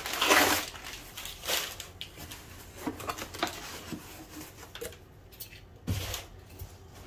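Packing paper and plastic-wrapped packs rustling and crinkling as a cardboard box is unpacked by hand, loudest in the first half-second, with a dull thump near the end as the box is moved aside.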